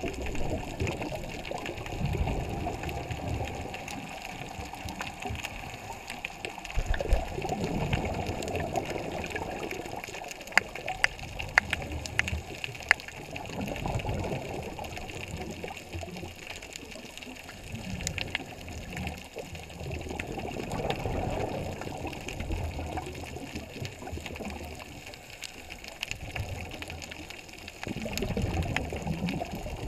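Underwater rushing and bubbling, heard through a camera housing: a diver's exhaled bubbles surging past about five times, every five or six seconds, with scattered small clicks in between.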